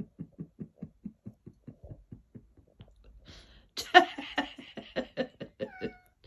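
A person laughing: a run of breathy chuckles, about five a second, that trails off over the first two seconds. About four seconds in comes a louder, higher-pitched burst of laughter.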